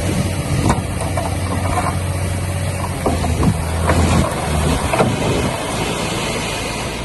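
Diesel engine of heavy earthmoving machinery running steadily, with scattered clanks and rattles; the low drone eases off about two-thirds of the way through.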